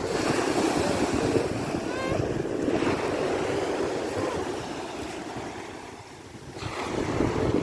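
Sea waves breaking and washing up the shore. The surf eases about six seconds in, then a new wave rushes in near the end.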